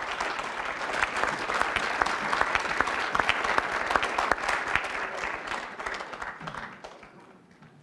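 Audience of parliamentarians applauding at the end of a speech, the clapping dying away over the last couple of seconds.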